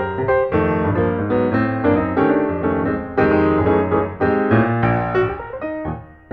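Background piano music: a quick run of notes and sustained chords, with a brief dip shortly before the end.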